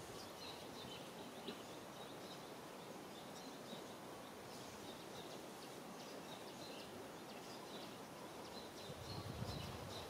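Faint outdoor background noise with small birds chirping in short, repeated notes. A low rumble swells up near the end.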